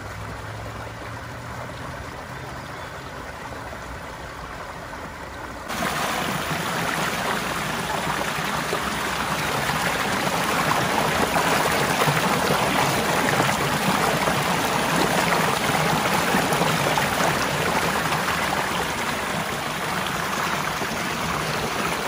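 Shallow creek water rushing and splashing over rocks inside a corrugated metal culvert pipe, a steady flowing sound that turns suddenly much louder about six seconds in.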